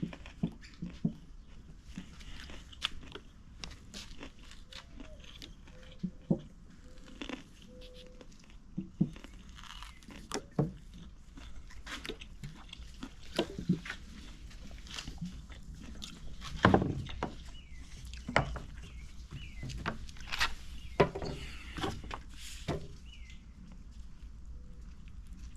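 Irregular taps, clicks and light knocks of hand work on a wooden dresser, with louder knocks about 17 and 21 seconds in.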